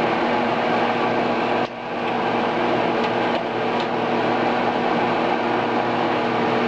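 Clothes dryer running, its exhaust air rushing out through the vent duct, with a steady hum under the rushing noise. The sound dips sharply for a moment about one and a half seconds in.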